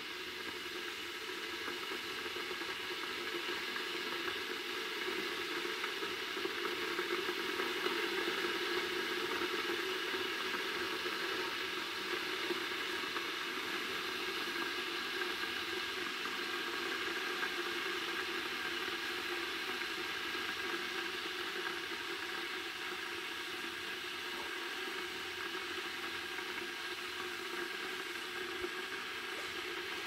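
Philips stainless-steel electric kettle heating water: a steady hiss from the heating element and water, with a few faint steady tones, swelling a little over the first several seconds and then holding.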